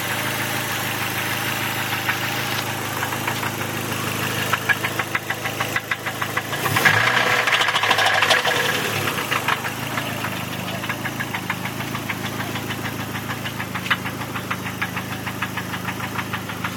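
Dodge SRT-4's 2.4-litre turbocharged four-cylinder engine idling with a rhythmic knock. It is revved briefly about seven seconds in, then settles back to idle with the knock still there. The owner takes the knock for rod knock.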